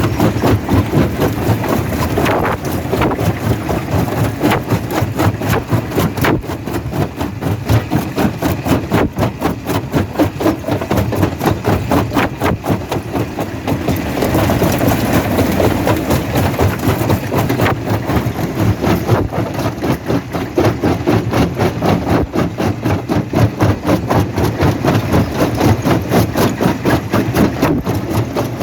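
Quarry jaw crusher running with a steady, fast, engine-like throb.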